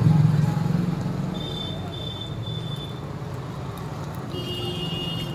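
Road traffic with a steady low engine hum, and a thin high tone sounding twice: about a second in and again near the end.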